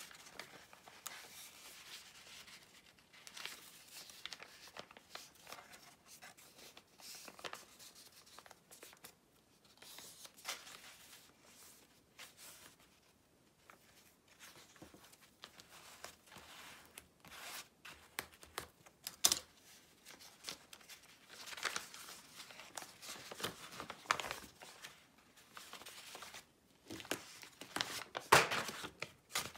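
Paper handled by hand at close range: sheets rustling, rubbing and crinkling against old book pages, with tearing. There are irregular rustles throughout and a few sharper, louder crinkles in the second half.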